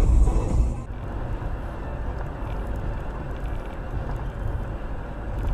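Steady road and engine noise of a car driving at speed, heard from inside the cabin through a dashcam microphone. In the first second a louder rumble from a different dashcam clip cuts off abruptly.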